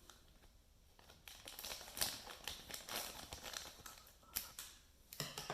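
Plastic packaging around a new Ethernet cable being opened and handled: faint, irregular crinkling with small clicks, starting about a second in.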